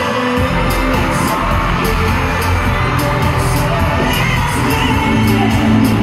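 K-pop dance track with sung vocals played loud over an arena sound system, with a crowd of fans cheering. A heavy bass line comes in about half a second in, under a steady beat.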